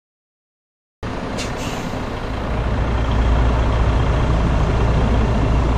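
Freightliner Cascadia semi truck running, with a steady low engine drone and road noise that starts suddenly about a second in and grows louder a second or so later. Two brief hisses come just after the start.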